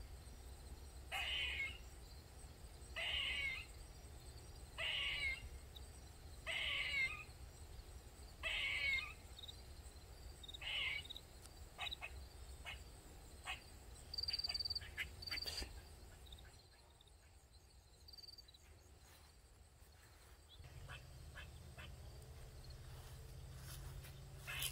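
Eastern gray squirrel crying: six drawn-out, harsh calls about two seconds apart, then stopping after about eleven seconds, followed by a few faint clicks.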